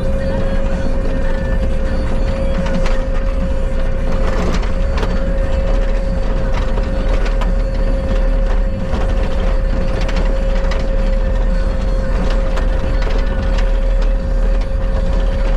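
Bobcat skid steer running steadily under work, a deep rumble with a constant whine over it and scattered knocks.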